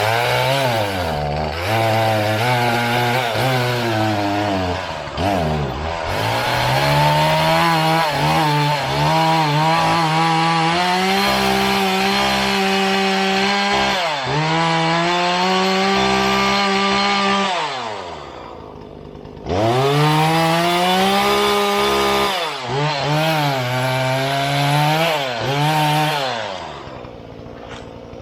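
Two-stroke chainsaw running at high revs, its pitch sagging and climbing as under load, dropping back briefly twice and revving straight back up.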